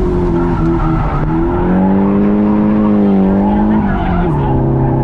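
A drift car's engine held high in the revs at a fairly steady pitch while its tyres squeal and skid. The revs fall away about four seconds in.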